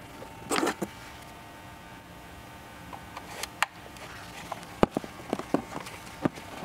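Rustling and light clicks of a cable and a handheld plastic calibrator being handled while the cable is connected, with one sharp click about five seconds in.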